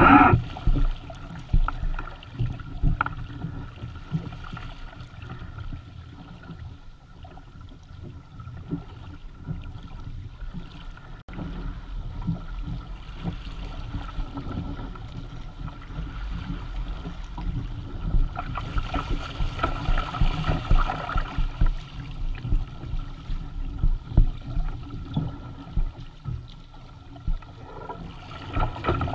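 Water rushing and splashing along the hulls of a Hobie Tandem Island sailing kayak under sail, with wind gusting on the microphone. The water hiss swells for a couple of seconds about two-thirds of the way through.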